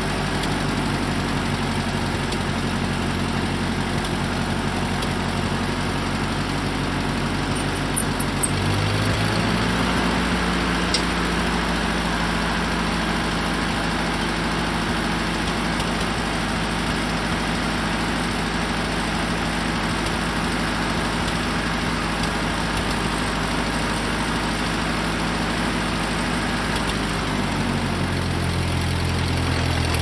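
Engine powering a Foley Belsaw circular sawmill, running steadily; about nine seconds in it speeds up, and it drops back to a lower speed near the end.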